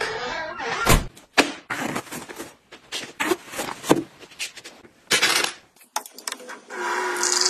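Front door opening, then shutting with a knock about a second in; shoes and slippers knock on a wooden floor. Near the end an IAM countertop water dispenser runs water steadily into a glass.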